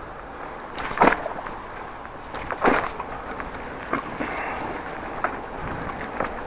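Steady wind and riding noise on the action camera's microphone during a bicycle ride, with several short, sharp knocks; the loudest comes about a second in and another just before three seconds.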